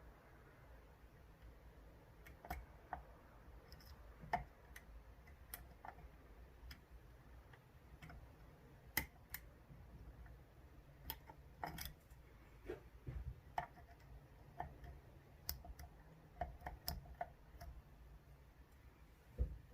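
Faint, irregular metallic clicks of a dimple pick working the pins inside an Ezcurra DS10 ten-pin dimple euro cylinder under tension, with a dozen or so scattered clicks spread unevenly through.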